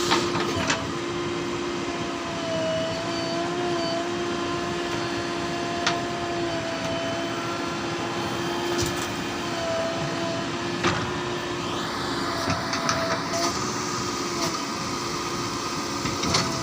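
JCB 3DX backhoe loader's diesel engine running under load, with a steady whine that wavers slightly in pitch. A few sharp knocks come through, about six, nine and eleven seconds in.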